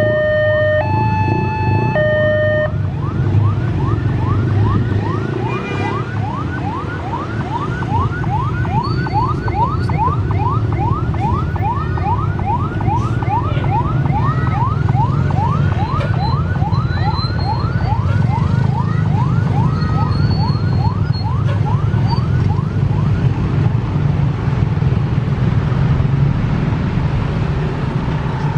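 A level-crossing warning alarm sounds its two alternating tones and stops about two and a half seconds in. An ambulance siren then yelps in fast rising sweeps, about two a second, and cuts out near the end. Under both runs the steady rumble of idling and creeping motorbike, car and bus engines in a traffic jam.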